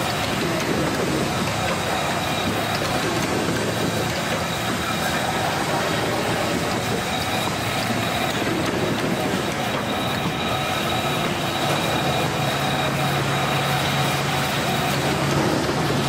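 Industrial hydraulic guillotine paper cutter running while it cuts stacks of paper: a steady mechanical drone with a low hum that grows louder about twelve seconds in.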